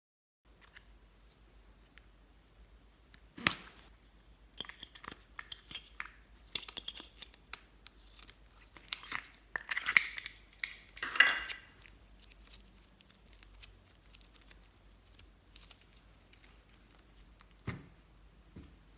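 Close-up handling noises: scattered small clicks and crackles, with a louder stretch of crinkling and tearing in the middle.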